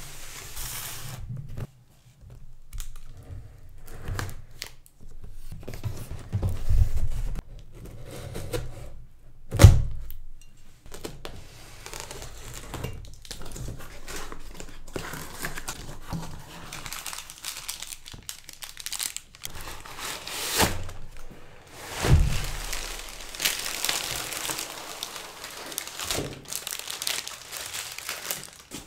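Unboxing a long cardboard speaker box: thumps and knocks as the box is shifted and handled on a table, the loudest near ten seconds in, then cardboard and plastic wrapping rustling and crinkling as the slim speaker is slid out.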